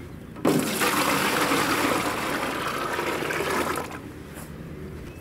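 Water poured from a bucket into an empty clear plastic tub: a loud gushing splash starts suddenly about half a second in and eases to a trickle near four seconds.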